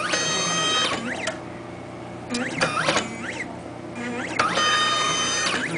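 Stepper motors of a home-built three-axis pick-and-place IC test machine moving its axes: whines that sweep up in pitch as the motors speed up, hold several steady pitches during each move, then sweep down as they stop. Three moves, with short pauses between.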